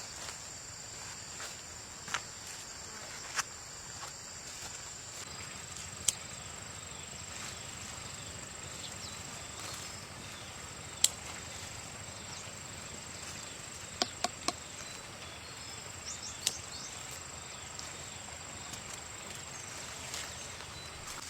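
Steady, high-pitched chirring of insects, with scattered sharp clicks or knocks. The loudest click comes about eleven seconds in, and three follow in quick succession around fourteen seconds.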